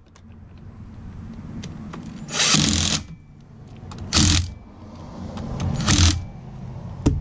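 Cordless impact wrench running in three short bursts, with a brief fourth near the end, driving the 10 mm sprocket bolts on a Honda Grom. The tool's clutch is set to 30 foot-pounds.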